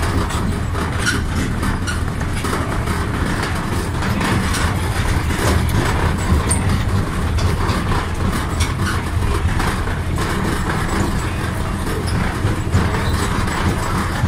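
An open-sided passenger vehicle drives along, its engine and running gear giving a steady low drone with faint rattles over it.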